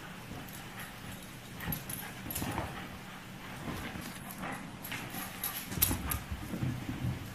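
A Shiba Inu moving about, with scattered light taps and knocks and a few faint dog noises.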